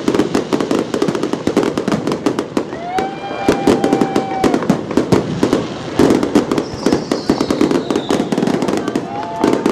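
Fireworks display: a dense, continuous run of crackles and bangs, with a held whistling tone about three seconds in and another near the end.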